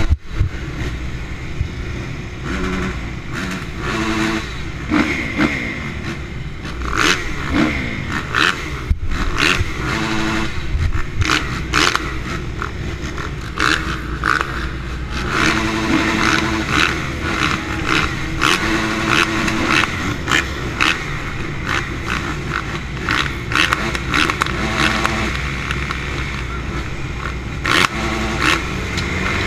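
Motocross bikes at the start gate, including the rider's Honda CRF450 single-cylinder four-stroke, idling and blipping their throttles, with engine notes rising and falling over and over. Frequent short knocks and rustles cut across the engine sound.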